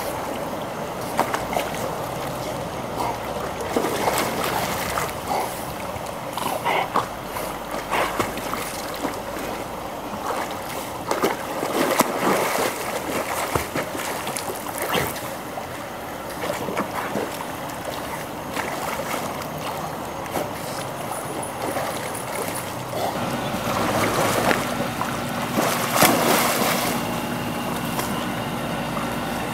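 Pool water splashing and sloshing as two German shepherds wade and swim, with many short splashes from their paws. A steady hum joins in about three-quarters of the way through.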